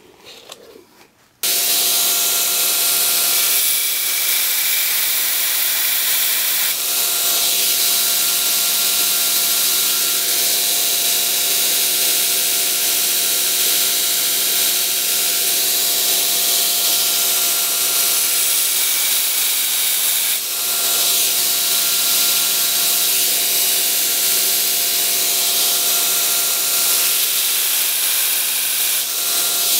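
Belt grinder running with a steel knife blade held against the abrasive belt on the flat platen, grinding in a bevel: a steady loud hiss of belt on steel over a constant machine hum. It starts abruptly about a second and a half in and dips briefly a few times.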